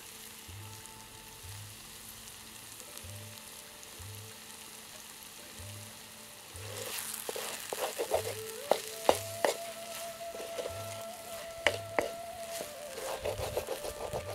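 Okra curry sizzling in a clay pot over a wood fire. About halfway through, a wooden spoon starts stirring, with sharp scrapes and knocks against the clay pot.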